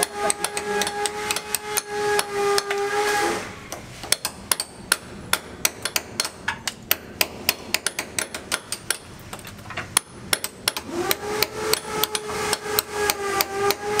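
Hammer striking a steel chisel against ceramic wall tiles and the concrete behind them: a quick run of sharp metallic strikes, about three a second, as loose tiles are chipped off the wall. A steady pitched hum sounds under the strikes for the first few seconds and comes back near the end.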